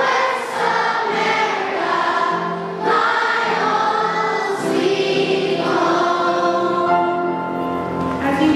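Choir of young schoolchildren singing a song together, with long held notes.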